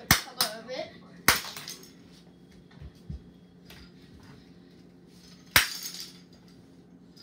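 Sharp plastic cracks and smacks against a hard floor as Zuru Smashers capsule balls are smashed open. There are two loud cracks in quick succession at the start, another about a second later and one more near the end, with softer clicks of shell pieces in between.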